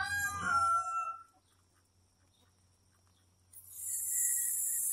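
A rooster crowing, the crow dying away about a second in. After a quiet gap, a steady high hiss with a faint thin tone comes in near the end.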